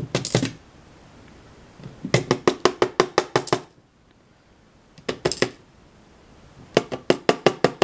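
Small metal parts of a disassembled pin-tumbler lock clicking as the pins and plug are handled: two runs of quick, evenly spaced clicks, about eight a second, with a few single clicks between.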